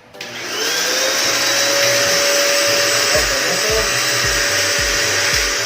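A JK-8 1000 W vacuum cleaner's motor is switched on a fraction of a second in. It spins up with a briefly rising whine and then runs steadily, sucking in bulky debris with the nozzle removed. Background music with a steady kick-drum beat comes in about halfway through.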